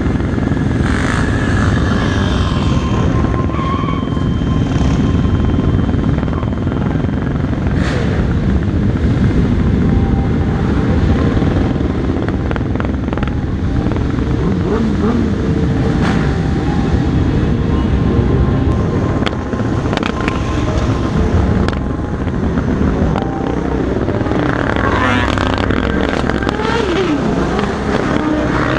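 Motorcycle engines running among a group of riders, heard close through a helmet-mounted microphone with a steady low rumble and wind rush, and some pitch glides of engines revving near the end.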